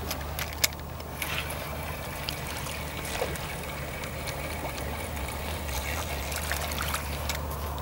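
Float-rod tackle being handled and recast at the water's edge: a few sharp clicks, then rustling and light water trickling, over a steady low hum.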